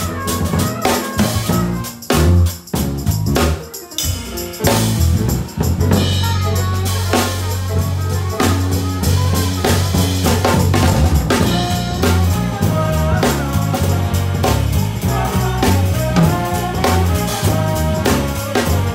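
A live band plays a groove on drum kit, struck with sticks, and electric bass guitar. About two seconds in it breaks into a sparser passage of separate drum hits, then the full groove returns after about four and a half seconds.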